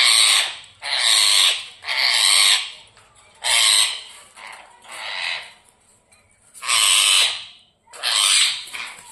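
Ringneck parrot (rose-ringed parakeet) screeching: a series of about seven loud, noisy calls of half a second to a second each, roughly one a second with short gaps.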